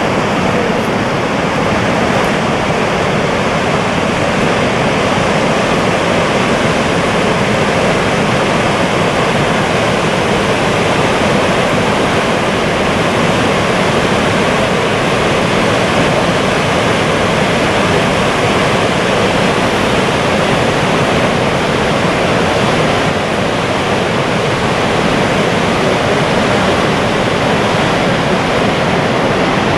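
The Dettifoss waterfall: a huge volume of water pouring over a wide rock edge into a canyon, making a loud, constant rushing noise that stays steady throughout.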